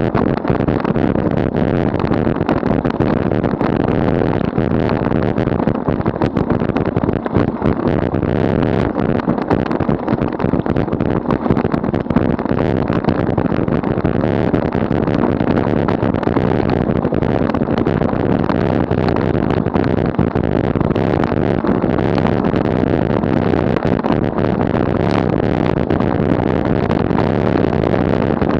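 Steady rushing wind and tyre rumble from a bicycle rolling along an asphalt road, picked up by a camera microphone mounted on the moving bike.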